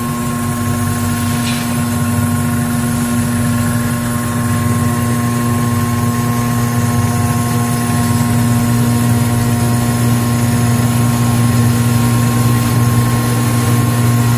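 Stainless-steel multi-functional powder grinder, the last machine of a ginger powder line, running with a loud, steady motor hum and whine that grows slowly louder.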